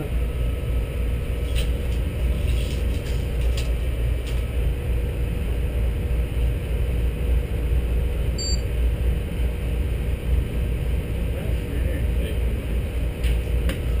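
Steady low mechanical rumble of running machinery with a faint constant hum, and a few faint knocks.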